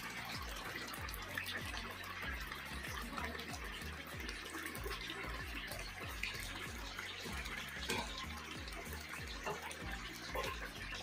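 Marinated chicken 65 pieces deep-frying in a kadai of hot oil: a steady crackling sizzle of bubbling oil.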